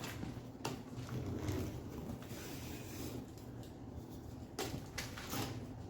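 Handling noise in a small room, with a few sharp knocks or clicks: one about half a second in and two more near the end.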